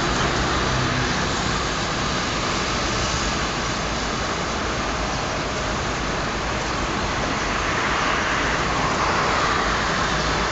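Steady hum of city road traffic mixed with the rolling of an approaching electric-hauled passenger train, a little louder near the end as the train nears.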